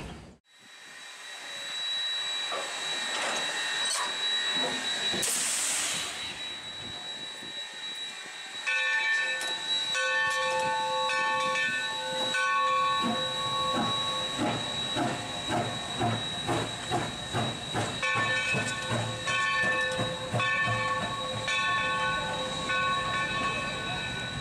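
Steam locomotive hissing steam, with a short, louder burst of steam about five seconds in. From about nine seconds in its chime whistle sounds in a run of short and long blasts, over a soft chuffing beat of about two a second.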